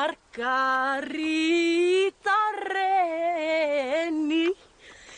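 A woman singing long held, wavering notes with no accompaniment, in two phrases with a short break about two seconds in.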